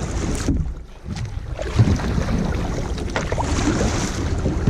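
Wind buffeting the microphone in a steady low rumble, with a brief lull about a second in and a few short knocks.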